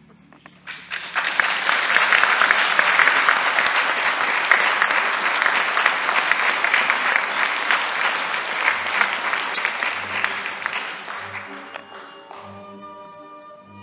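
Audience applauding: dense clapping swells in about a second in, holds, then dies away around twelve seconds. Soft, slow music with a pulsing bass begins near the end.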